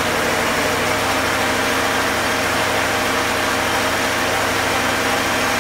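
Chevrolet Performance 350 H.O. small-block V8 crate engine in a Jeep CJ-7 running steadily, with an even, unbroken engine pulse.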